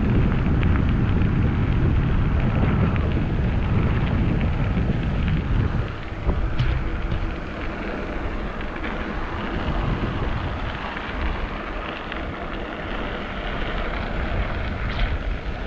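Wind buffeting the microphone during a bike ride, a steady low rumbling noise that eases a little about six seconds in.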